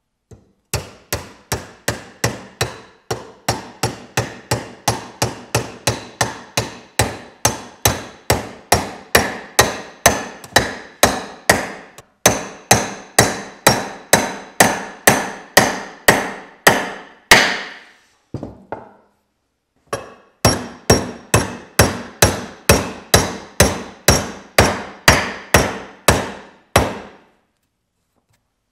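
Hammer tapping a metal wedge down into the top of a wooden axe handle set in the axe head's eye, spreading the wood to lock the head on. Steady, even strikes about two or three a second, each with a short metallic ring, stopping briefly twice before the tapping resumes.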